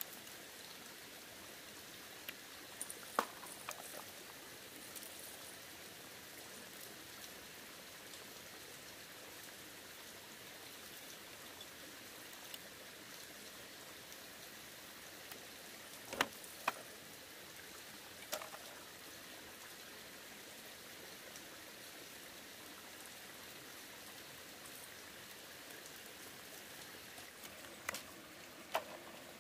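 Machete blade working thin bamboo strips: a few sharp clicks and knocks, the loudest about three seconds in and twice around sixteen seconds, over a steady faint hiss like running water.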